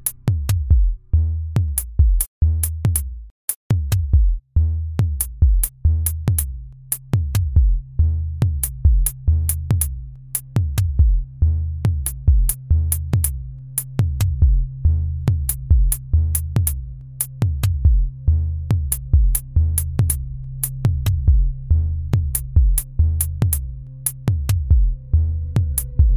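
Electronic music from a software drum machine: a steady loop of low drum beats that drop in pitch, with sharp clicks between them. A held low ZynAddSubFX synthesizer note comes in about four seconds in, and a higher synth note is added near the end.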